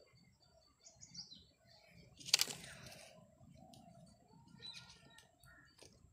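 A plastic ruler lifted and slid off a sheet of paper, a brief rustle of paper about two seconds in. Faint short calls, one a quick falling chirp, sound in the background.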